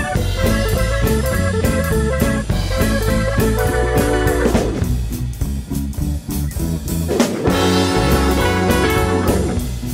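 Background music: a guitar-led track with bass and drums keeping a steady beat.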